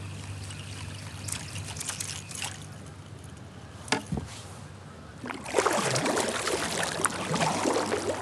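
Kayak paddle strokes: water splashing and dripping off the paddle blades, much louder from about five and a half seconds in, with a couple of sharp knocks about four seconds in.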